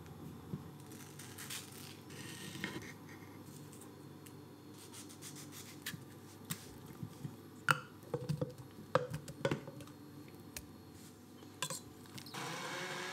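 Soft scraping and scattered sharp clinks of mango pieces and utensils on a ceramic plate as a mango is cut and diced, with a cluster of clinks a little past halfway. Near the end a handheld immersion blender starts and runs steadily in a cup of mango pieces.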